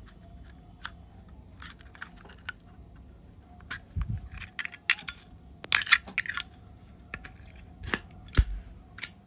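Zippo lighter being handled: a string of sharp metallic clicks and clinks as the hinged lid flips open and snaps shut and the insert is worked, with a couple of dull knocks against the table.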